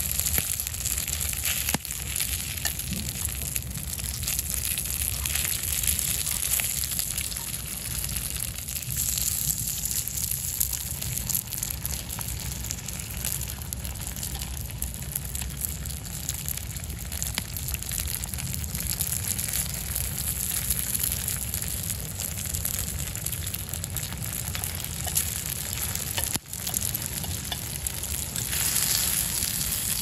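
Bread and patties frying on an iron skillet over a wood fire: a steady sizzling hiss with a low rumble underneath, broken by two very brief dropouts.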